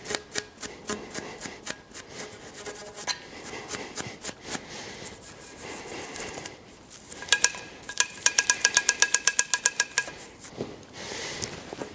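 A toothbrush scrubbing the oiled ejectors at the breech end of an over-and-under shotgun's barrels: scattered scratchy clicks, then, about seven seconds in, a fast run of some twenty metallic strokes, about eight a second, with a ringing tone.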